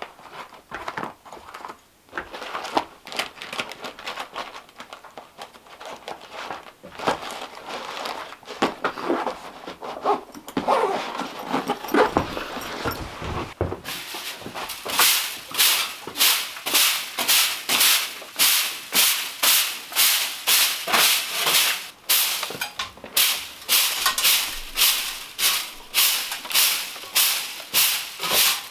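Straw broom sweeping a floor in brisk, regular swishing strokes, about one and a half a second, over the second half. Before that, scattered clattering and handling knocks.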